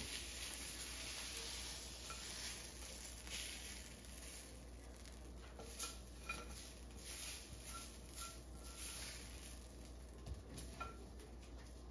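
A stir fry of vegetables and meat sizzling faintly in a frying pan, the hiss thinning after about four seconds. A metal utensil stirs it, with scattered light clinks and scrapes against the pan.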